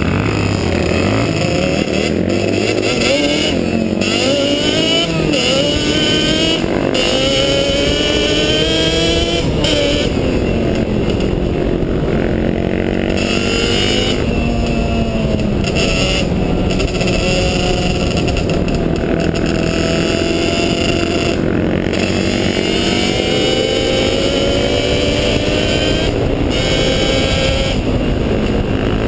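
Sport quad (ATV) engine being ridden hard, revving up and dropping back again and again as it runs through the gears and throttle changes.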